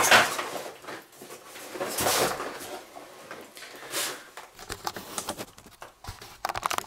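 Hard plastic housing parts of a pressure washer being handled: a few short scraping rustles, then a quick run of small clicks near the end.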